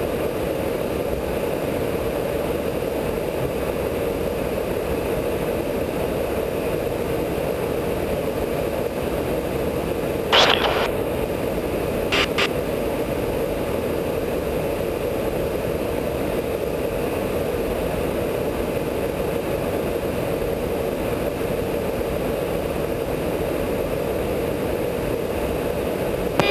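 Steady drone of a KC-135 tanker in flight, heard inside the boom operator's pod, with a constant low hum under a hiss. Two short crackles come about ten and twelve seconds in.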